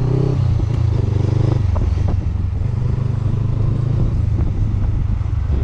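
Honda CB500X parallel-twin motorcycle engine running steadily under way, with a few knocks and rattles and a slight drop in pitch about four seconds in.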